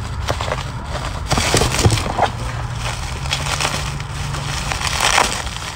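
Plastic bubble wrap crinkling and crackling as it is handled and pulled from a cardboard box, a busy run of small sharp crackles.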